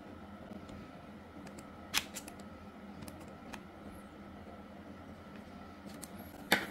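Small clicks and taps of a screwdriver and metal blade being handled on a TPOB YETI hair clipper during a blade swap, with a sharp click about two seconds in and a louder double click near the end. The clipper motor is not running.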